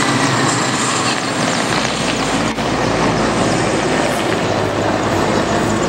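Military helicopter flying low overhead, its rotor and turbine noise steady throughout.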